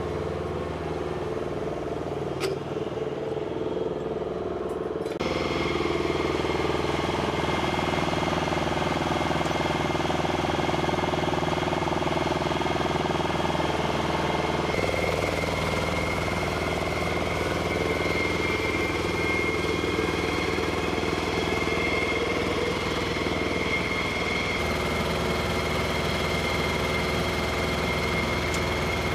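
Steady engine and machinery noise of flight-line ground equipment, with a steady high whine from about five seconds in; the sound changes abruptly a few times.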